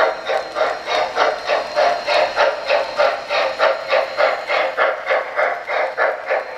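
Electronic steam-chuff sound from an O-scale model Norfolk and Western J-class streamlined steam locomotive as it runs past, a steady hissing chuff about three and a half times a second.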